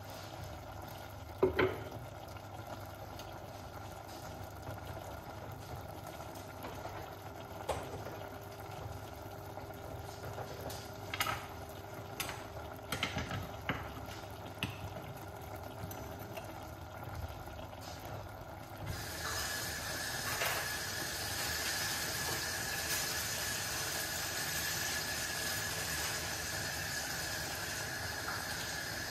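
Stir-fry vegetables sizzling and bubbling in a stainless steel saucepan, with a sharp clink a second or two in and a few lighter clinks later. About two-thirds of the way through, the sizzling hiss grows louder and a steady high whine joins it.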